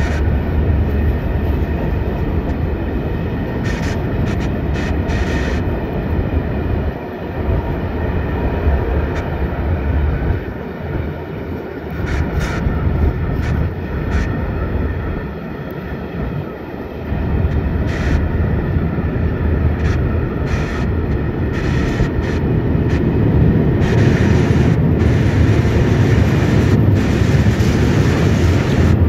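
Freight train of open wagons rolling past close by: a steady rumble of wheels on rail with many sharp clacks, growing louder about 24 seconds in.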